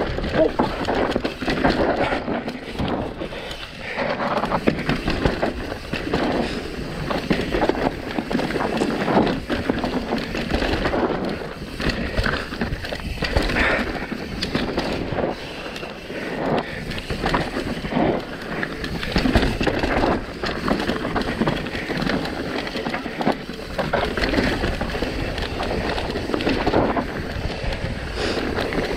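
Mountain bike running down a rough dirt trail: tyres rolling over dirt and rock with the bike clattering and knocking over the bumps throughout.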